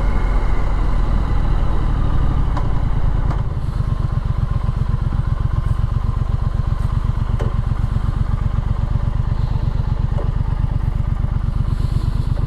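Triumph Street Scrambler's 900 cc parallel-twin engine running, then easing off about three and a half seconds in to a slower, evenly pulsing beat that holds steady.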